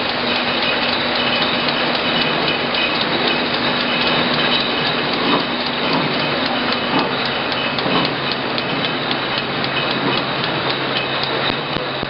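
Bottling-line machinery running: a steady mechanical hum and whine with clattering, and a few sharper clicks and knocks partway through.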